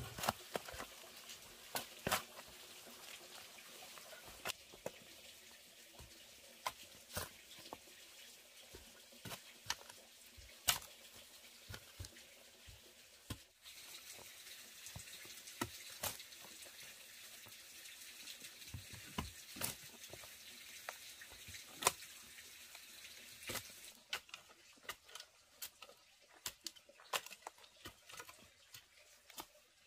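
Steel shovel digging in dry, stony soil: irregular sharp chops and scrapes of the blade as it bites in and lifts dirt, several in quick succession near the end, over a faint steady hiss.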